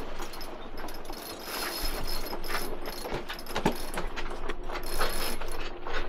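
Yacht's sheet winch being wound, its pawls ratcheting in runs of fast clicks as the sheet is trimmed in after a tack.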